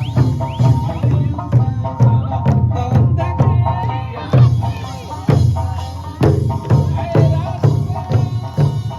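Lively Okinawan folk music for kachaashii dancing, driven by a steady drum beat of about two strikes a second, with a few sharper, louder drum hits partway through.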